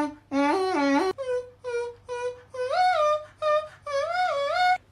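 Beatboxer's vocal melody: a string of short hummed notes, two or three a second, bending up and down in pitch. About a second in, a click, and the line moves higher.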